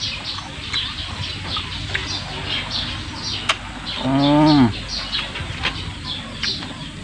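Small birds chirping over and over in the background. About four seconds in, a single low, drawn-out hum-like call of under a second, the loudest sound.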